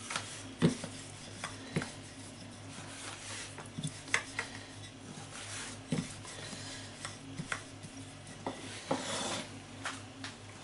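Wooden rolling pin rolling out pastry on a floured worktop: a soft rubbing with scattered light knocks and clicks as the pin is pushed, lifted and set back down.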